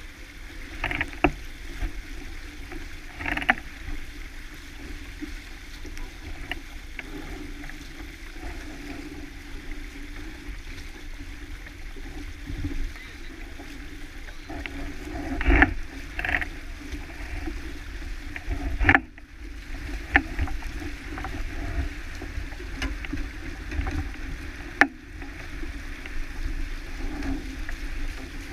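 Steady rush of wind and water on a small sailboat under sail, with wind rumbling on the microphone. Scattered sharp knocks and clicks break through it, the loudest about 15 and 19 seconds in.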